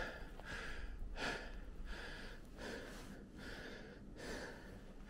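A hiker breathing hard while trudging through knee-deep snow. Short breaths and snow steps come in a loose rhythm, somewhat more than one a second.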